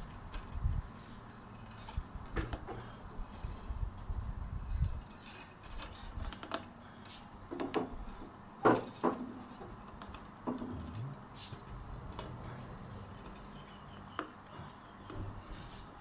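Thin split-bamboo strips clicking, ticking and rustling against each other as they are threaded by hand into the crossed base of a woven fish creel. The ticks come irregularly, the sharpest about nine seconds in.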